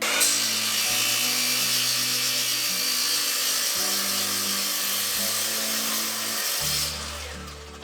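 A power tool running under load on the workpiece: a steady, loud, high-pitched hiss that starts suddenly and cuts off near the end.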